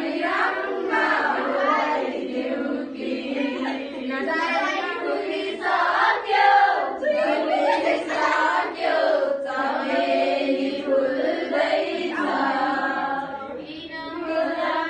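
A group of girls' voices singing a song together.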